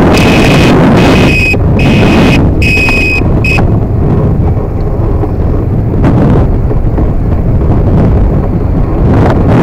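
Heavy wind buffeting the microphone with road rumble from a moving electric scooter. Over the first few seconds a high-pitched electronic beep sounds on and off in pulses, then stops.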